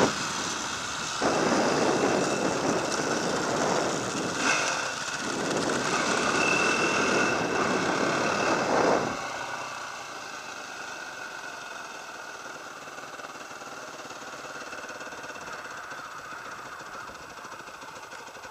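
Dirt bike being ridden, its engine heard under heavy wind rush across the bike-mounted camera, with short dips about a second in and near five seconds. After about nine seconds the rush drops away and the engine runs much more quietly and steadily at a low idle as the bike comes to a stop.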